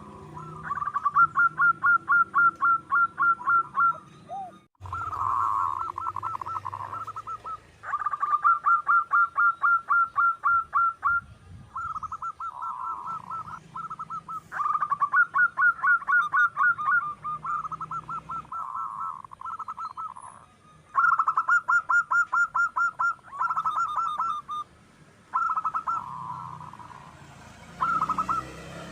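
Local zebra dove (perkutut) singing. It repeats phrases of quick staccato coo notes, each run ending in a lower rolling coo, with short pauses between phrases.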